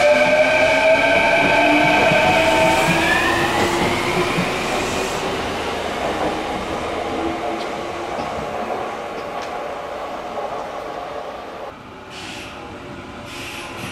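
Electric commuter train pulling away from the platform, its inverter motors whining in several tones that rise in pitch as it accelerates, then the running noise fading as it leaves. Short hisses of air come near the end.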